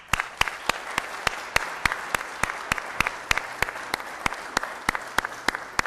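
An audience applauding, with one person's claps standing out loud and close in a steady beat of about three to four a second over the crowd's clapping.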